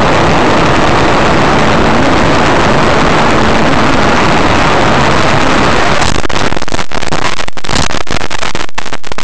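Loud, steady road and wind noise picked up by a dash cam in a moving car. About six seconds in, the noise breaks up into choppy knocks and dropouts as the camera is jolted loose.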